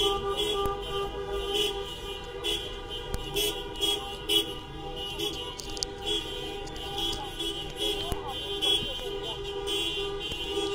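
Many car horns honking again and again in short and long overlapping blasts as cars drive past in a honking protest motorcade (bocinazo).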